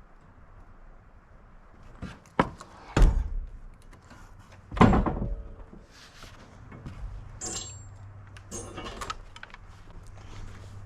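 Three heavy thuds and knocks, the loudest about five seconds in, then lighter clattering and a low steady hum.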